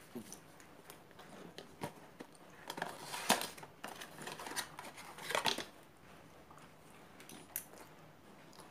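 A small cardboard medicine box being handled and opened by hand, with rustling scrapes and a few light clicks; the loudest rustles come about three seconds in and again about five and a half seconds in.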